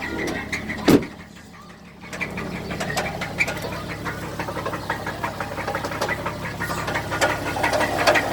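The 3.7-litre V6 of a 2010 Dodge Ram 1500 is idling with a steady, rhythmic knock that the owner cannot pin down. A loud thump comes about a second in, and for about a second after it the engine sound is muffled and quieter.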